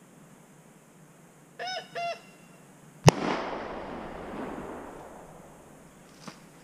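Two short honking calls, then about a second later a single gunshot whose echo dies away over roughly two seconds: the marking shot of a retriever field trial. A faint click near the end.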